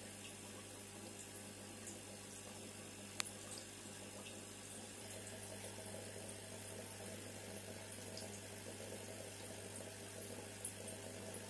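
Faint steady trickle of water over a low constant hum, as from an aquarium's running water, with a sharp click about three seconds in and a smaller one near the end.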